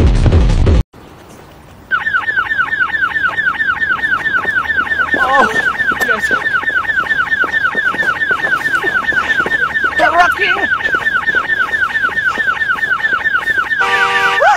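Pounding electronic dance music cuts off about a second in. After a short lull, a car alarm sounds a rapid, repeating falling chirp, then switches to a different pulsing tone pattern near the end.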